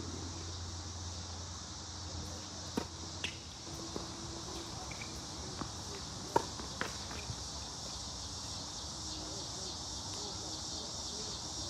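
Tennis rally on a hard court: a handful of sharp racquet hits and ball bounces, the loudest a forehand struck close by about six seconds in. Under it a steady high insect chorus.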